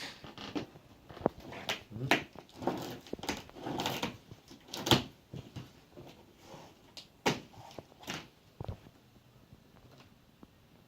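A cardboard TV box being opened and handled: irregular knocks, clicks, scrapes and rustles, the loudest about five seconds in, dying down after about nine seconds.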